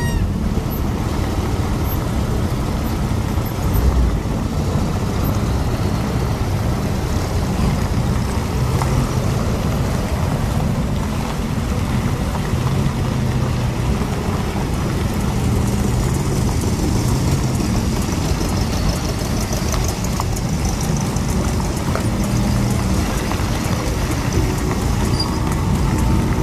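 Several trike engines running at low speed as the trikes pull away and ride past one after another: a steady, overlapping engine sound.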